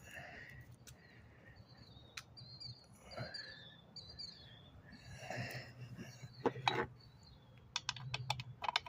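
Light metallic clicks and rattles of chainsaw parts being handled, with a quick run of clicks near the end.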